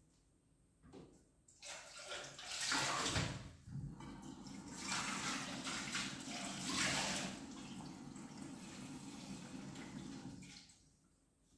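Kitchen tap running into a stainless-steel sink while dishes and a pot are rinsed. The water starts about a second and a half in, splashes louder in two spells, and stops near the end.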